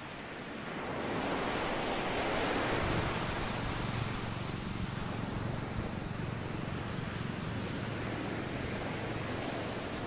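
Steady rushing of wind and water at the shore, swelling about a second in and then holding steady, with a faint high steady tone underneath.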